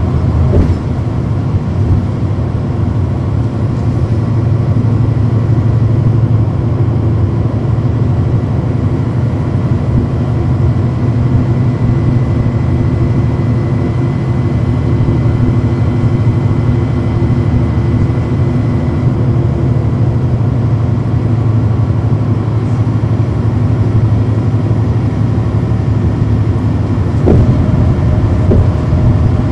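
On-board sound of a NABI 40-foot transit bus's Cummins ISL9 straight-six diesel engine running with a steady low drone. A faint thin whine comes in for a while in the middle, and there are a couple of knocks, one near the start and one near the end.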